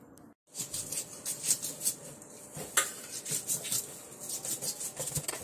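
Kitchen utensils clattering: a quick run of light metallic clicks and clinks, starting after a brief drop-out about half a second in.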